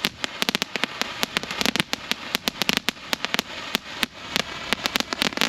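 Aerial firework cake crackling: a dense, irregular stream of rapid sharp pops layered over one another.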